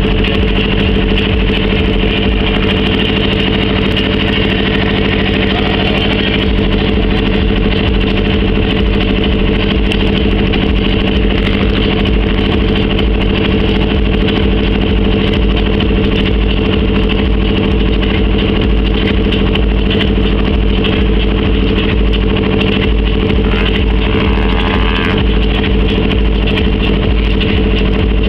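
A loud, steady engine drone whose pitch never changes, over low rumbling buffeting of wind on the microphone.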